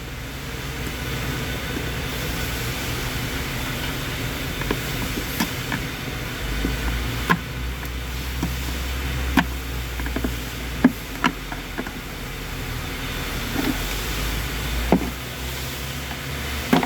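Scattered sharp clicks and knocks, like hand tools and loose parts striking metal, over a steady low mechanical hum that swells for several seconds in the middle.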